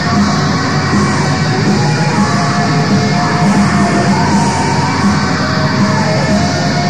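Raw black metal recording: loud, dense distorted guitars and drums playing continuously, with a harsh yelled vocal gliding through the middle of the passage.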